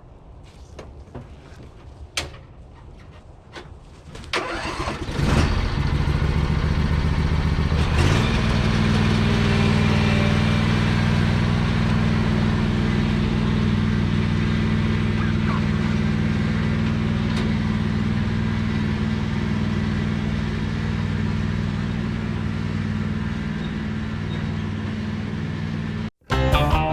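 An engine starts about four seconds in, picks up over the next few seconds and then runs steadily, cutting off suddenly near the end. A few faint clicks come before it.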